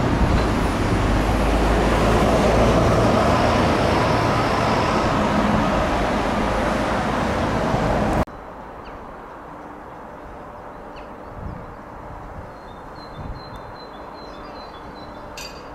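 A train passing close by: a loud, steady rush of wheel and rail noise. It cuts off abruptly about eight seconds in, leaving quiet station ambience with a few faint high chirps.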